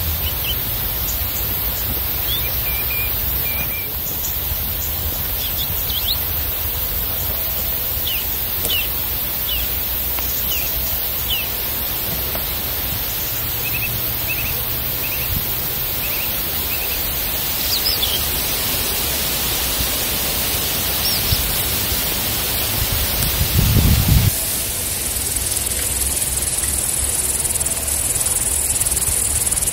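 Summer woodland ambience: a steady high hiss with short bird chirps scattered through it and a low wind rumble on the microphone. Near the end there is a brief low thump, after which the hiss abruptly gets brighter.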